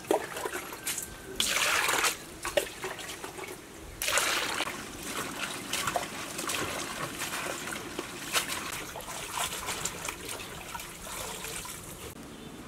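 Broth in a large cooking pot bubbling and sloshing as cut vegetables are pushed into it. There are louder splashy bursts about one and a half and four seconds in, then steadier bubbling with small pops.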